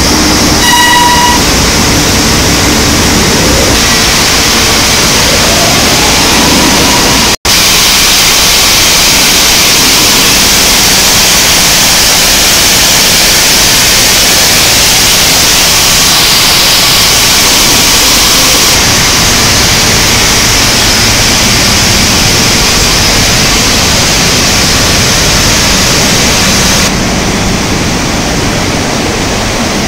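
Loud, steady hissing noise of a steel billet continuous caster at work, its machinery and cooling water running together. A short beep sounds about a second in, and the noise cuts out for an instant about seven seconds in.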